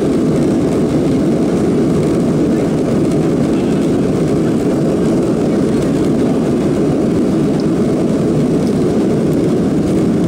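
Steady, even cabin noise of a Boeing 737-500's CFM56 jet engines, heard from a seat over the wing as the airliner taxis and turns toward the runway.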